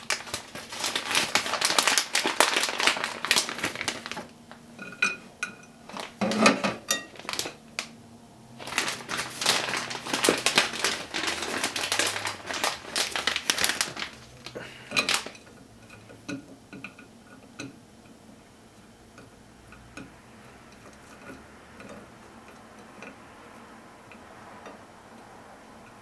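Plastic snack bag crinkling in two long stretches as cheese sticks are pulled out, with light taps of the sticks and hand on a ceramic plate. After about sixteen seconds only faint occasional ticks remain.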